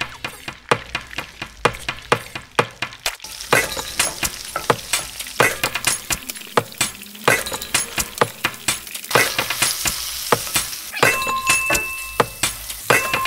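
Butter stirred with a wooden spatula in a nonstick frying pan, then a thick yellowtail amberjack fillet frying in the butter with a steady sizzle that builds a few seconds in. Many sharp clicks and taps from the spatula against the pan and from a shaker of herb salt run over it.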